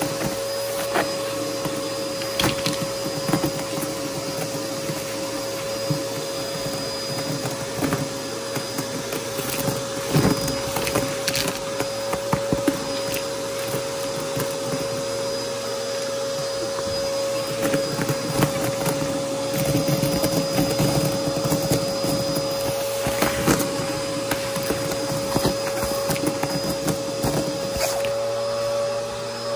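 Aeroswift vacuum cleaner running with a steady motor whine while it sucks up dry crunchy debris, which crackles and ticks in scattered clicks.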